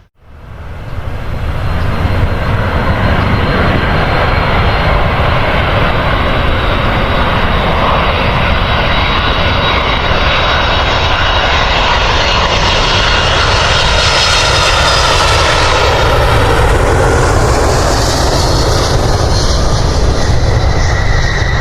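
Airliner's engines sounding loudly as the plane passes close by, growing brighter to a peak about two-thirds of the way through and then easing off.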